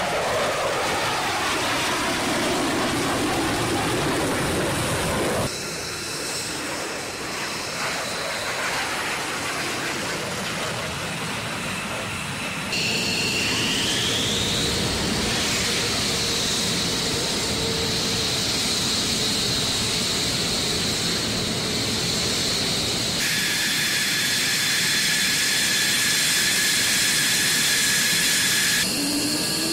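Fighter jet engines in a run of short clips with abrupt changes between them: a jet passing overhead in the first few seconds, then jet engines running on the ramp with a steady high turbine whine, one whine rising about 13 seconds in.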